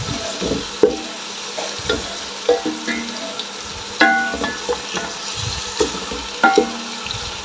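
Wooden spoon stirring and scraping chicken and masala in a metal pot, in short irregular strokes over a steady sizzle of frying.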